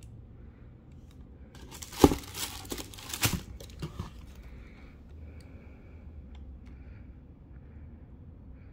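Packing paper in a shoebox crinkling as a sneaker is handled over it: a cluster of crackles about two seconds in, lasting around two seconds, then only faint rustling.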